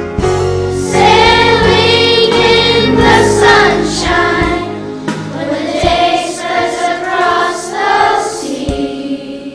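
A group of children singing a song together as a choir, holding long notes.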